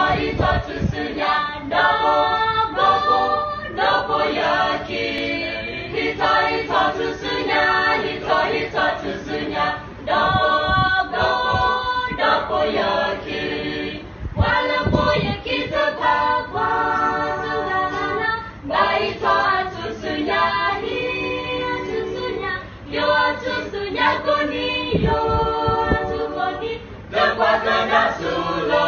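A small group of young women and men singing together unaccompanied, in phrases with brief pauses for breath.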